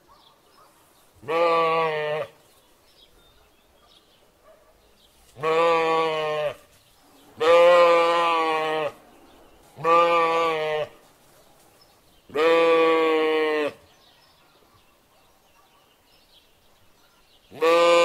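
Sheep bleating: six separate wavering baas, each about a second long, with a longer pause before the last one near the end.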